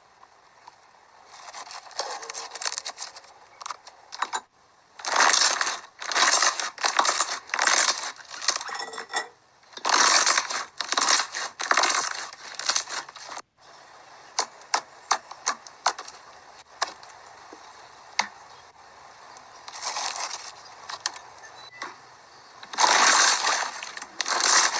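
Slime being squeezed and worked by hand, giving bursts of crackling and clicking, several seconds at a time, with quieter scattered clicks between the bursts.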